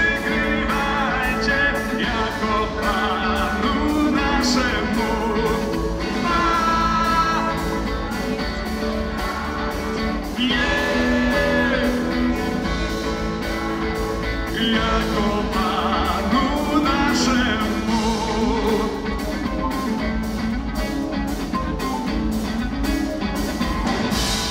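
Live rock band playing a Polish Christmas carol in a rock arrangement, with electric guitars, bass and drums under a sung melody, in a large church. The song comes to its end near the end.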